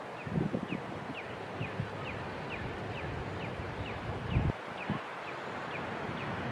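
Wind buffeting the microphone in low gusts, loudest about half a second in and again past the middle, over a faint background series of short, high, down-slurred bird chip notes repeating about twice a second.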